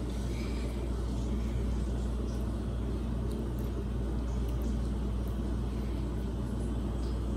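Steady low background hum, with a few faint light taps.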